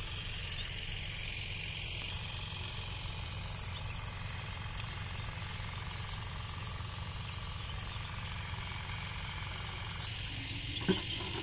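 Outdoor ambience: a steady low rumble under a faint, steady high drone, with two short knocks near the end.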